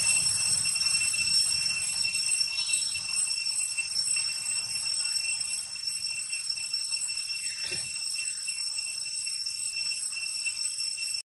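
A steady, high-pitched drone of insects, unbroken throughout, over a low rumble, with one brief low sound about three-quarters of the way through.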